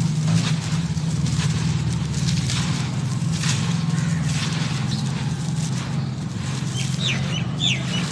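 Dry, dusty lumps of compacted dirt crunching and crumbling in the hands, with irregular crackles as they break and grit falls, over a steady low hum. A bird chirps several times near the end.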